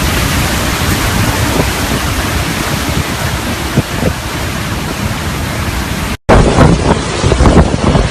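Hurricane wind blowing hard, a loud steady rush with gusts buffeting the microphone. It breaks off for an instant about six seconds in, then comes back with heavier low buffeting.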